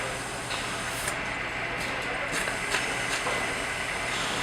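A few light clicks of small cam-cleat parts being handled, over a steady background hiss.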